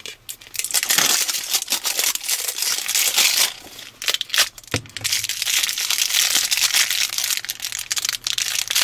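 Crinkling and crumpling of the plastic wrapping on an LOL Surprise ball and the pink polka-dot plastic blind bag inside it as they are handled, squeezed and torn open, with dense crackling and a brief lull a little before halfway.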